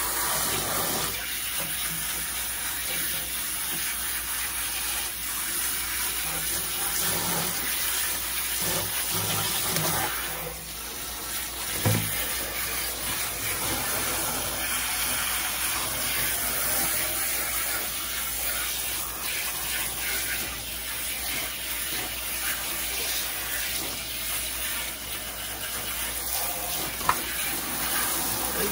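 Pull-down kitchen faucet sprayer running steadily, its spray hitting a wet Himalayan cat and splashing into a stainless steel sink. A brief knock comes about halfway through, and another near the end.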